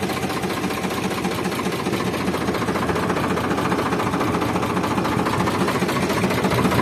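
Farmtrac tractor's diesel engine running with a steady, rapid chug, growing a little louder toward the end.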